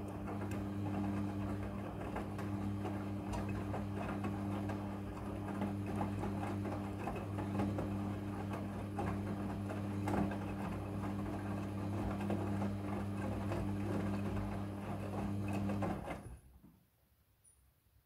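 Midea front-loading washing machine running a wash cycle: the drum motor hums steadily while the wet laundry tumbles and flops inside the drum. The motor and tumbling stop abruptly about sixteen seconds in as the drum comes to rest.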